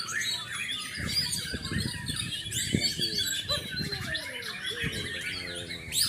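Many songbirds chirping and calling at once: quick, overlapping whistles and chirps that rise and fall without pause.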